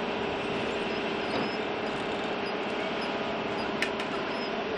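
Steady engine drone with a constant hum, and one sharp click a little under four seconds in.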